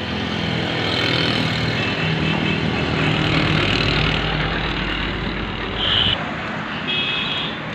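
Motor vehicle engine running steadily, its low rumble swelling in the middle and dropping off sharply about six seconds in, with two brief high-pitched tones near the end.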